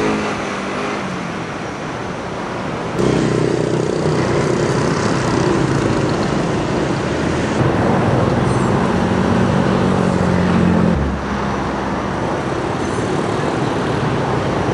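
Motor engines running with steady traffic noise; the low engine hum changes pitch abruptly three times.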